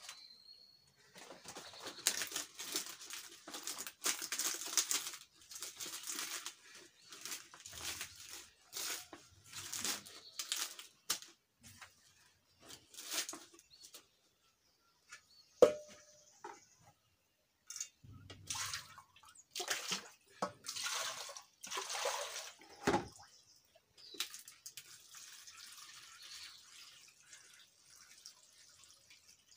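Hands washing banana leaves in a metal pot of water: irregular splashing and rustling of wet leaves, with a sharp knock against the pot about halfway through and another a few seconds later.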